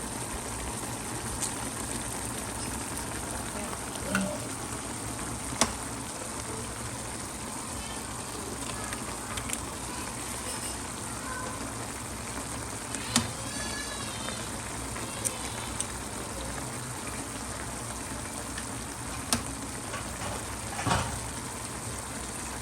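A pot of braised peas in sauce simmering with eggs poaching in it, giving a steady sizzle and bubble. A few sharp clicks and clinks come at scattered moments.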